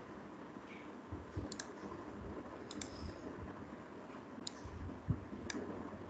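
A few faint, sharp computer mouse clicks, some in quick pairs, spread over several seconds against a low steady hiss.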